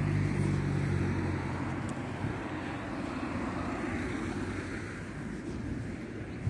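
A motor vehicle passing: a low engine hum that fades out about two seconds in, under a broad rushing noise that slowly dies away.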